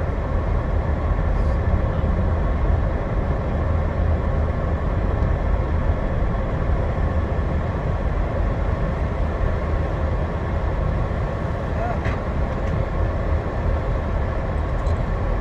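Steady road and engine noise inside a moving car's cabin: a constant deep rumble with an even hiss above it.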